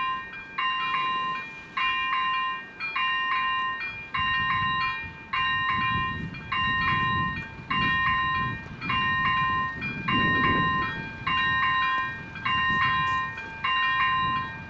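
Electronic level-crossing warning bells (ZV-01/ZV-02 on an AŽD 97 crossing) ringing a repeating chime about once every 1.2 seconds, the signal that a train is approaching. A low rumble swells under the bells in the middle and peaks a little after ten seconds in.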